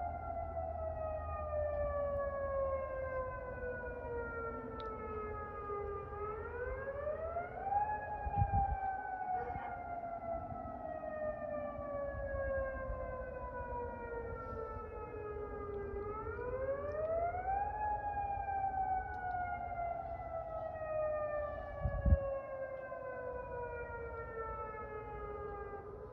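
Outdoor tornado warning siren wailing during a siren test: the pitch climbs over about two seconds, then slides slowly down, repeating about every ten seconds. Two low thumps come through, one about a third of the way in and a louder one near the end.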